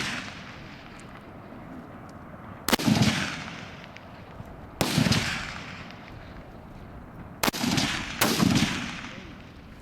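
Rifle shots from a long-range firing line: four sharp cracks a few seconds apart, the last two close together, each followed by a long echoing rumble that dies away over a second or two.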